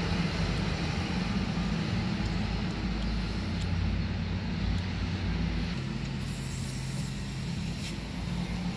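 Steady low mechanical rumble and hum of a running vehicle engine, with a few faint clicks; the hum shifts slightly about six seconds in.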